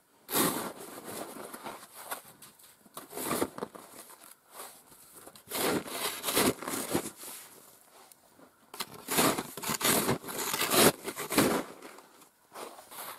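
Snow shovel scraping and scooping deep snow in irregular strokes, some in quick runs, with short pauses between.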